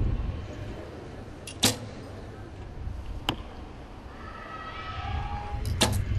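Sharp cracks of arrows being shot, over a low outdoor rumble. The loudest comes about a second and a half in, a fainter one about three seconds in, and a quick double near the end.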